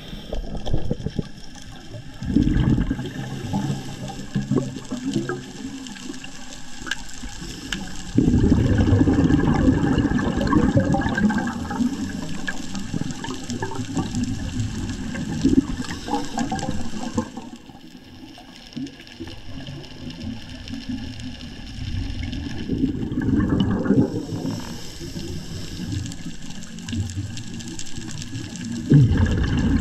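A scuba diver breathing through a regulator underwater: exhaled air bubbles out in loud, low bursts, one long one in the middle, with quieter stretches between breaths.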